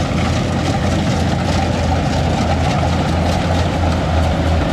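Kubota DC70 combine harvester running steadily under load as it cuts and threshes storm-flattened rice, its engine giving a low, even, pulsing hum under the clatter of the cutting and threshing machinery.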